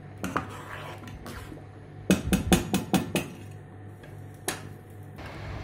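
Metal spoon stirring rice and milk in a stainless steel pot, knocking against the pot: a few scattered clinks, then a quick run of about six knocks about two seconds in, and one more near the end.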